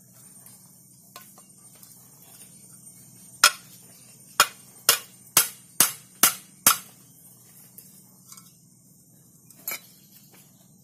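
Claw hammer tapping on a metal part of a dismantled cooling machine: a quick run of about seven sharp metallic strikes roughly half a second apart, then one more near the end.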